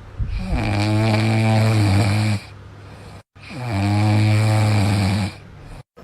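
Snoring: two long snores of about two seconds each, with a steady low pitch that slides down briefly at the start. The two snores look alike.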